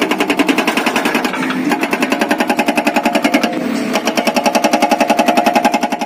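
Hydraulic rock breaker on a JCB 3DX backhoe loader hammering its chisel into rock, a rapid, steady run of blows at about ten a second.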